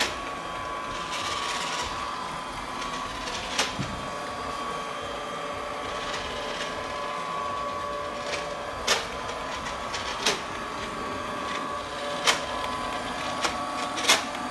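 Ecovacs Deebot M80 Pro robot vacuum running with a steady whine over its motor hum, and a few sharp knocks at irregular intervals. This is the terrible noise it made when running, which the owner blames on a failing main roller brush motor.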